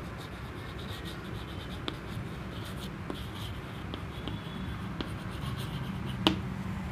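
Chalk writing on a chalkboard: soft, scratchy strokes, with one sharp tap of the chalk against the board near the end.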